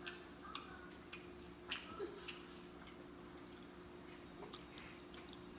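Close-miked mouth noises of someone chewing pizza: a handful of soft wet smacks and clicks in the first two and a half seconds, then only a faint steady hum.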